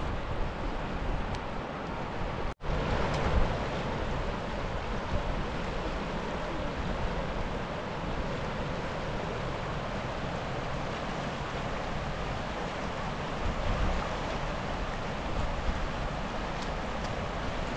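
Steady rush of flowing river water, with a split-second dropout about two and a half seconds in.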